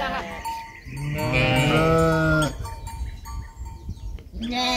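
Goats bleating in long, wavering calls: one bleat about a second in, with a second animal calling lower at the same time, and another starting near the end.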